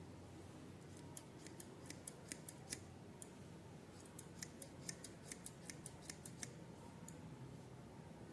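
Restored garden shears snipping: a quick run of sharp, crisp clicks as the blades close, about two or three a second, with a short pause in the middle, as the shears are tested after reassembly.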